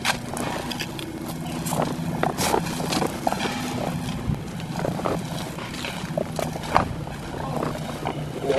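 A motor running steadily with a low hum, engine-like, with scattered short clicks and taps over it.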